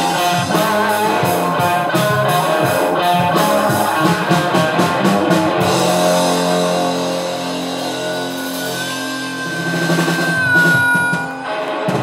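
Live rock-blues band with electric guitars, drums and harmonica playing the end of a song. About six seconds in the drums stop and the band holds a ringing final chord while the harmonica sustains a long high note that bends down near the end, before everything cuts off.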